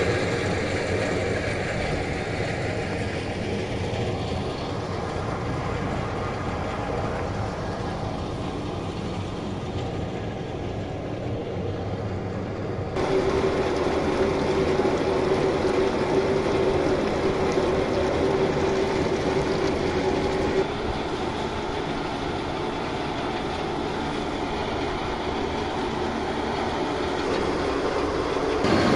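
Machinery running steadily with a rattling clatter, while water pours from a pipe into a concrete tank. A steady hum comes in about halfway and stops again several seconds later.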